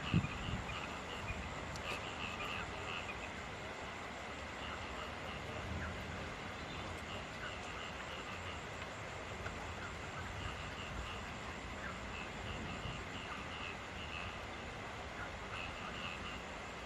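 Steady night rain with frogs calling in short, high, pulsed bursts every second or two. A single low thump sounds right at the start.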